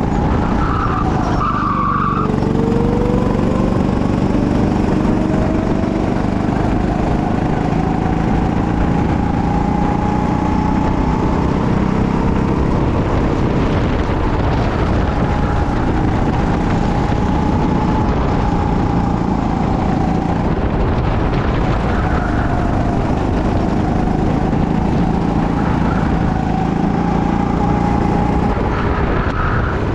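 Go-kart engine heard from the driver's seat under way, its pitch rising and falling as the kart accelerates and slows through the track's corners.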